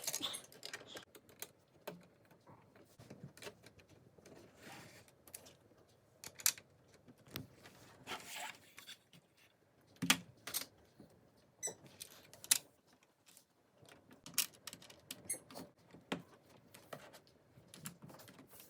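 Plastic LEGO bricks clicking and rattling as pieces are handled and pressed together: irregular sharp clicks with light rustling, a few louder snaps about halfway through.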